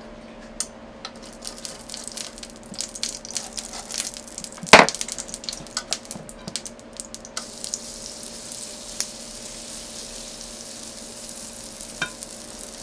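Utensil clicks and scrapes against a bowl as cornbread batter is scooped, with one sharp knock about five seconds in. From about seven seconds a steady sizzle sets in as the batter goes onto the hot, oiled waffle iron.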